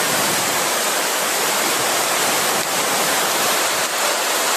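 Loud, steady rush of water, as from a flooding torrent or a heavy downpour, with no let-up.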